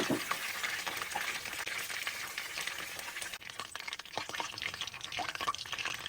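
Chicken karaage deep-frying in hot oil: a steady sizzling hiss with many small scattered crackles.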